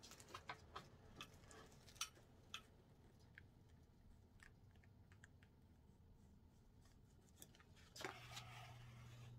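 Near silence with faint scattered ticks and rustles of hand-sewing a lace frontal with needle and thread. About eight seconds in comes a brief rustle, and a low steady hum starts with it.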